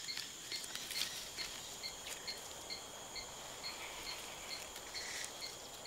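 Faint rainforest insect chorus: a steady high-pitched drone with a short chirp repeating about twice a second.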